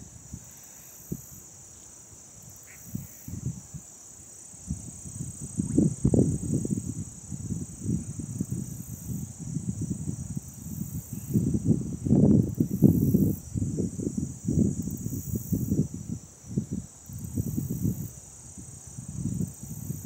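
A steady, high insect chorus of cicadas or katydids droning in the trees, with irregular low rumbling gusts of wind buffeting the microphone from about four seconds in.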